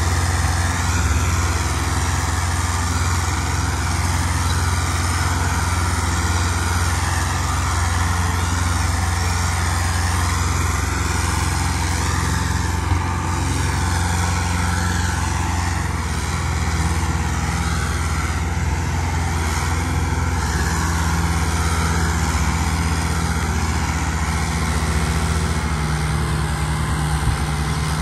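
New Holland 640 tractor's diesel engine running steadily under load as it pulls a heavily loaded trolley of maize through soft, rain-wet ground where it keeps getting stuck. The engine speeds up near the end.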